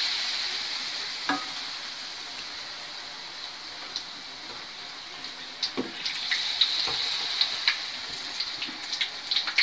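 A batter-coated spinach leaf (peyek bayam) frying in hot oil in a wok. The sizzle is loudest at the start and eases over the first few seconds, then crackling pops come more and more often from about halfway through.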